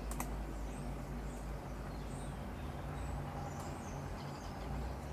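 Steady low room hum, with a single click just after the start and faint, scattered high chirps.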